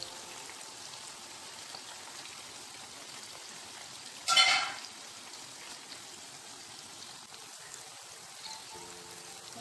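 Green brinjal strips deep-frying in sunflower oil, a steady sizzle throughout. About four seconds in comes a sudden loud burst lasting about half a second.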